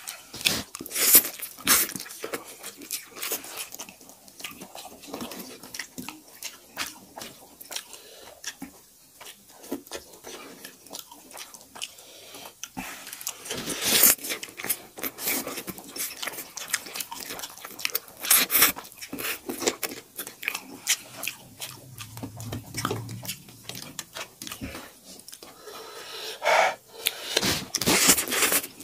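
Two people eating spicy instant noodles with forks: chewing, forks clicking and scraping on steel plates, and a few loud slurps of noodles.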